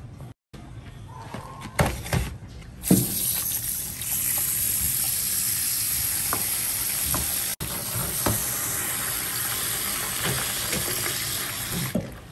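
Kitchen tap running a steady stream of water onto ice cubes in a plastic bowl, starting about three seconds in and stopping just before the end. A couple of sharp knocks come before the water starts.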